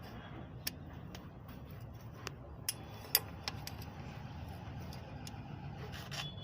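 A handful of sharp metallic clicks and clinks from hand tools working on metal, the loudest about three seconds in, over a steady low hum.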